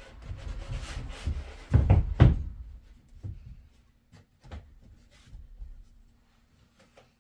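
A run of knocks and thuds, with two loud ones close together about two seconds in, then scattered light clicks over a faint steady hum.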